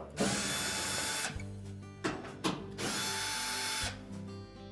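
Cordless drill/driver motor whirring in two runs of about a second each, with a short gap between them, as it backs out the screws that hold a washing machine's top panel.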